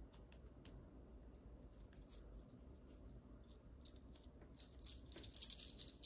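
Small clicks and scrapes of pliers working at the plastic and metal parts of a GFCI outlet being taken apart: sparse faint clicks at first, then a quicker run of small clicks and rattles over the last two seconds.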